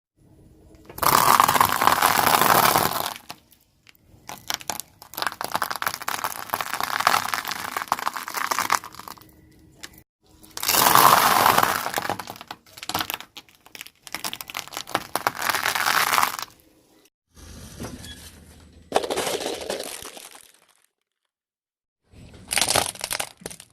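Car tyre rolling over and crushing brittle objects: a series of loud cracking, crunching bursts, six in all, each a few seconds long, with short silences between them.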